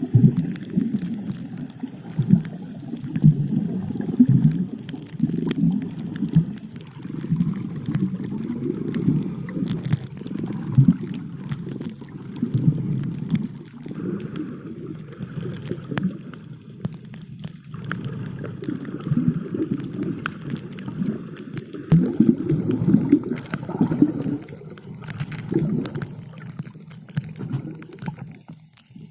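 Air bubbles heard underwater: a muffled, low gurgling and bubbling that surges and ebbs.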